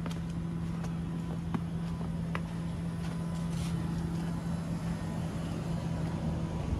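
A steady low hum from an engine or motor, holding one pitch without revving and stopping near the end, with a few faint clicks over outdoor street background.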